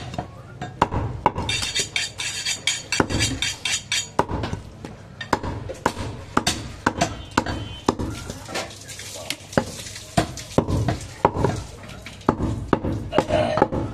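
Butcher's cleaver knocking and clinking against a wooden chopping block while cutting goat meat, in irregular sharp strokes. A fine, fast metallic rattle runs for about two seconds early on.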